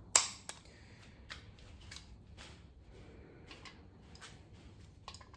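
A sharp metallic clack at the start, then a second click and a run of light, irregular clicks and taps: hand tools and an angle torque gauge being handled and fitted onto a socket wrench.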